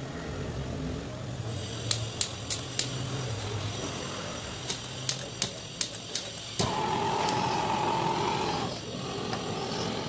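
Butane canister torch: its igniter clicks several times without catching, then the torch lights about six and a half seconds in and runs with a steady hiss and a held tone, dropping in level near the end.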